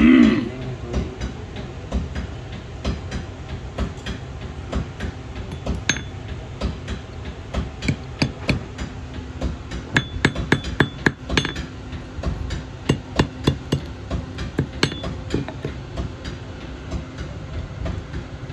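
A hammer tapping an iron ring on the horn of a steel anvil, rounding and sizing the ring. The light metal strikes come in quick runs of several a second, with short pauses between.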